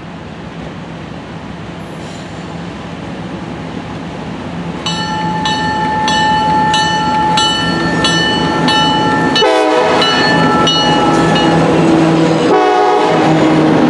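Approaching ALCO C420 diesel locomotives, their engines growing louder as they near. A bell starts ringing about five seconds in, about two strikes a second, and two short horn blasts sound near the end.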